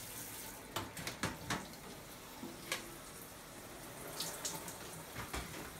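Handheld shower head spraying water onto a tray of soaking seeds. Several light knocks of plastic seed trays are heard while they are handled.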